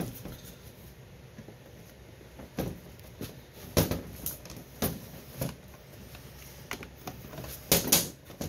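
Scattered clicks and knocks of a sealed sheet-metal ammunition tin being handled and turned on a workbench, with two louder knocks shortly before the end.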